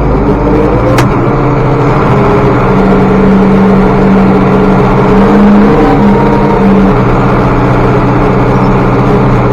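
International Harvester 1086 tractor's diesel engine running steadily under load from inside the cab while pulling loaded grain wagons on the road. A single sharp click comes about a second in.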